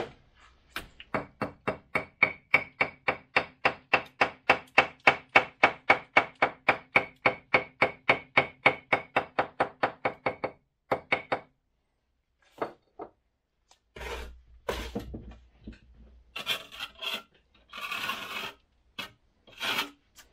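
Hammer tapping a wetted fireclay brick down into its mortar bed: a long run of even knocks, about four a second, lasting some nine seconds. Then a few single knocks, and near the end scraping and clatter of bricks being handled.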